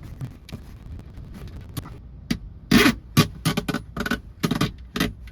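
Hands working a plastic roof fan vent and a cable tie: an irregular run of short, sharp scrapes and clicks starts about two seconds in, over a low rumble.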